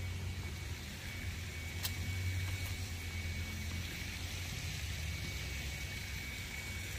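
Low rumble of a motor vehicle's engine running nearby, swelling about two seconds in and easing off near the end, with a faint steady high-pitched tone and a single click.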